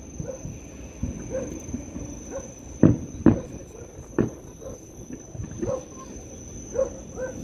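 Distant fireworks going off over the harbour: a handful of booms echoing across the water, the loudest two close together about three seconds in.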